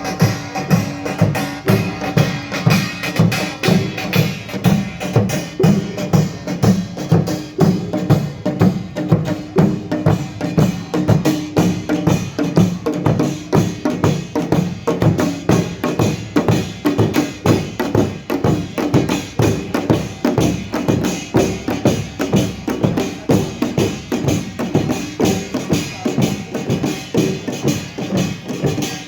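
Pungmul band of Korean folk percussion playing a fast, steady rhythm, with many strokes a second.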